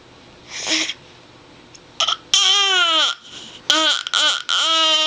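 Baby's loud, pitched vocalizing: a short call, then a long call that falls in pitch at its end, a few quick short calls, and a long steady held call.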